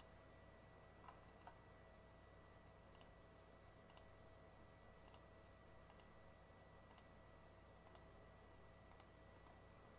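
Near silence: faint room hum with soft computer mouse clicks, about one a second.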